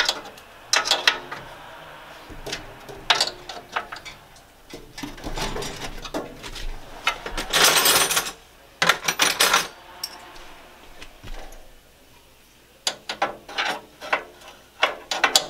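Metal clicks and clatter of a wrench working the fittings on a Weber gas grill's burner tubes, coming in scattered bursts, with one louder, rougher scrape about eight seconds in.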